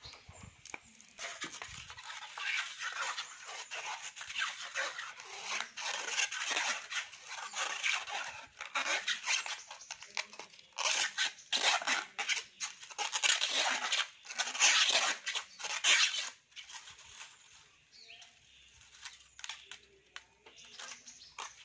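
Copper winding wire being pulled and unwound off a transformer coil by hand: a long run of quick scraping, rustling strokes that stops about sixteen seconds in, followed by fainter handling sounds.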